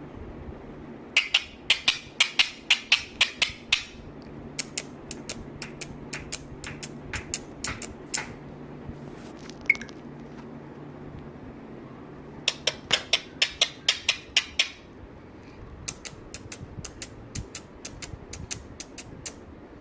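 Runs of sharp taps or clicks, several a second, coming in four bursts with short pauses between.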